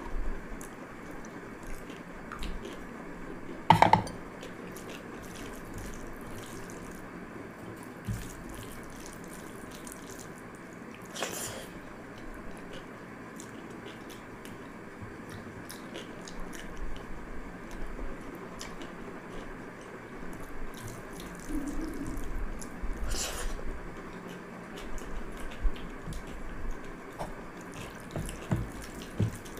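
A hand squeezing and mixing watery pakhala bhaat (rice soaked in water) in a glass bowl: wet squishing with water dripping back into the bowl. A sharp knock about four seconds in and a couple more later are the loudest sounds.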